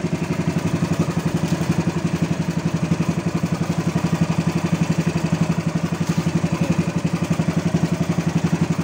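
Engine of a motorized outrigger boat (bangka) running steadily under way, a loud, fast, even pulsing beat.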